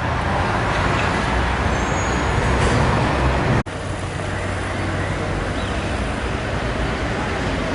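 Steady motor-vehicle engine and road noise, with a sudden brief break about three and a half seconds in.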